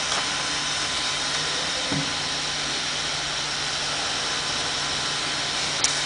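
A powered-up desktop 3D printer sits idle, giving a steady fan whir over a low hum. There is a faint click about two seconds in and another near the end.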